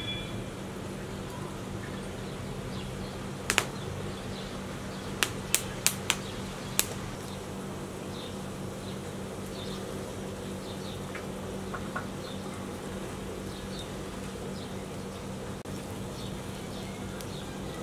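Wood fire burning in a metal fire pan, with a quick run of about six sharp pops or clicks a few seconds in, over a steady low hum.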